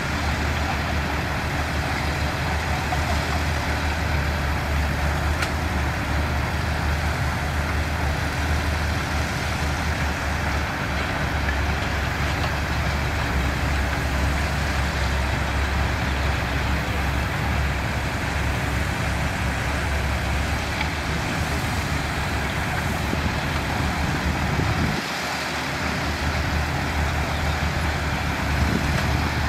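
Diesel engines of heavy earthmoving machinery, bulldozers and dump trucks, running steadily with a strong low rumble. The rumble drops out briefly about 25 seconds in.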